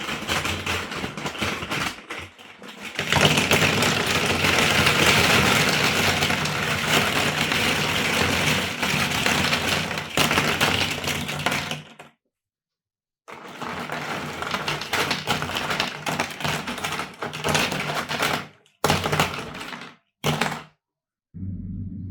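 Plastic toy building blocks clattering and rattling as they are handled, a dense run of clicks and knocks that stops abruptly a few times. A low hum starts near the end.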